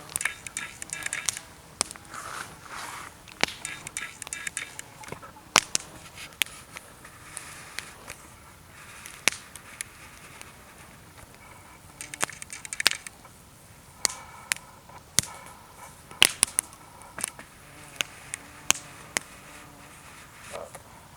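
Wood campfire crackling, with sharp, irregular pops and snaps from the burning wood over a low hiss.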